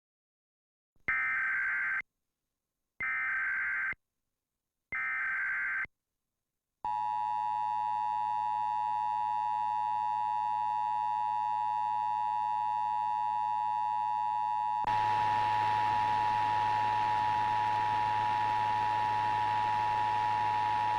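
Emergency Alert System test tones: three one-second bursts of the warbling digital SAME header data, then the steady two-tone EAS attention signal, which begins about seven seconds in and holds. About halfway through the attention signal, a hiss comes up under it.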